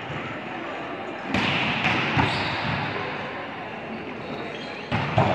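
Volleyball being struck during a rally in a large echoing gym hall: sharp smacks of the ball about a second and a half in, again a moment later, and loudest near the end.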